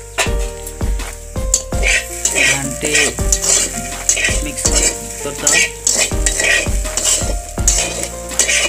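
Metal spatula scraping and clanking against a steel kadai in quick repeated strokes, stirring sliced potatoes that sizzle as they fry in oil.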